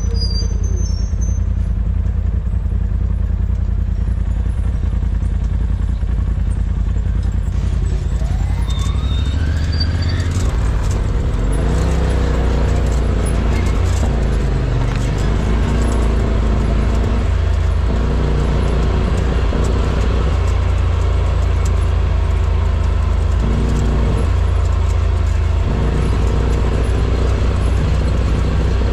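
Off-road vehicle engine running steadily under way. About eight seconds in it revs up with a rising whine, and after that the engine note rises and falls.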